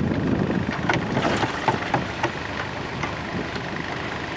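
Water rushing and splashing as trout are released from a hatchery stocking truck into the lake, with scattered sharp splashes about one to two and a half seconds in and wind buffeting the microphone.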